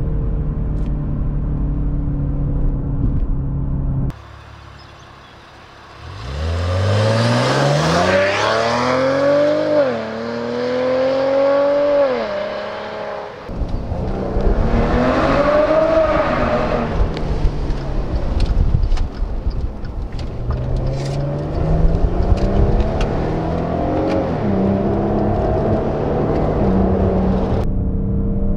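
Maserati Ghibli's turbocharged V6 under acceleration: a steady drone at first, then after a short quieter stretch several hard pulls, the engine note climbing and dropping back at each upshift.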